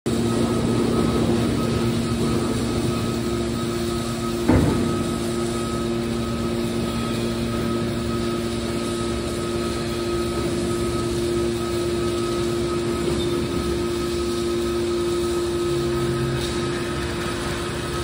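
Hydraulic power unit of a scrap metal baler running with a steady hum while the cylinders raise the baler's lid, with a single clunk about four and a half seconds in.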